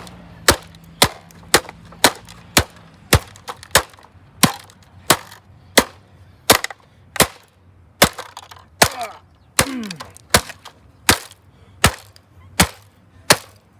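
Sledgehammer striking the wrecked plastic body of a Dirt Devil vacuum cleaner over and over, about two blows a second, each hit a sharp crack. A few blows leave a short falling whine as a piece rings or flies off.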